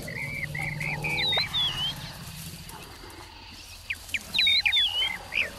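Birds singing in runs of quick repeated chirps and short whistled phrases, loudest in the second half, over a low steady rumble from an African bush elephant that lasts about the first two seconds.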